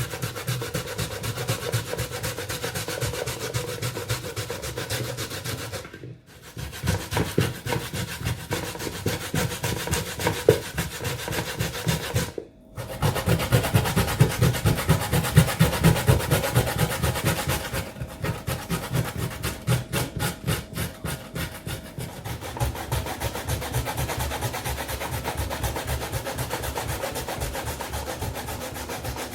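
Raw cassava being grated by hand on the fine side of a grater: quick, repeated rasping strokes, broken by two short pauses.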